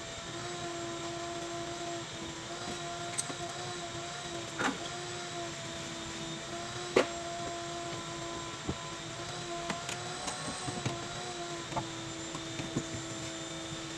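A steady mechanical hum, like a running electric motor, wavers slightly in pitch throughout. A few sharp clicks and knocks of tools on metal come through, the loudest about seven seconds in.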